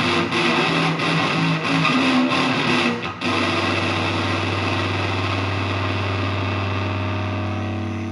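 Electric guitar played through an imifumei Tone Bender MKII germanium fuzz pedal: a distorted riff, then about three seconds in a final chord is struck and left to sustain, fuzzy and steady.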